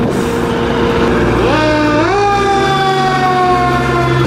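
Fire engine pulling out with its engine running. About a second and a half in, its siren winds up, then slowly falls in pitch.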